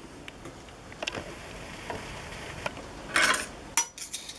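Light clicks and a short scraping rustle about three seconds in, from a Juki LU-562 walking-foot industrial sewing machine as it is turned over by hand to pick up the bobbin thread and the thread is drawn up through the needle plate.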